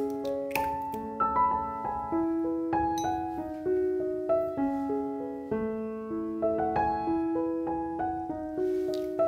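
Background piano music: a light melody of single notes moving step by step over held lower notes.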